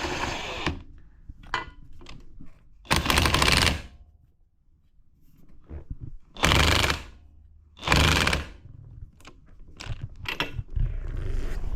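Socket ratchet clicking in four short runs as a 13/16 socket tightens the steering wheel retaining nut, with small clicks and knocks between the runs.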